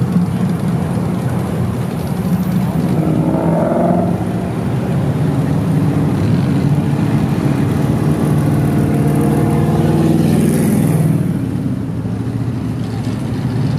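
Cars in slow cruise traffic driving past, with a steady low engine rumble. One engine revs up about three seconds in.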